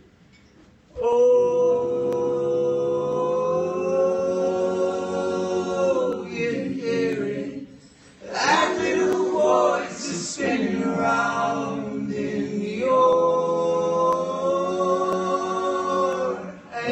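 Several voices singing together in harmony, largely unaccompanied, opening a song. They hold two long chords with a shorter moving phrase between them.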